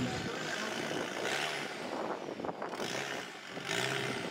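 Rock crawler buggy's engine revving in short surges as it climbs a boulder.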